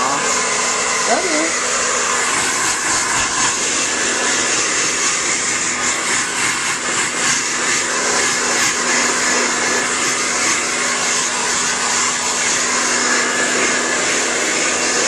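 Handheld hair dryer blowing steadily: a constant rush of air with a steady hum underneath.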